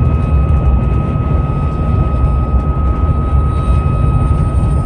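Roof-mounted light bar whistling at about 66 mph: one steady, unwavering tone over heavy low wind and road rumble. It is air passing through the light bar's fins, which the owner blames on the lower half of the fins vibrating.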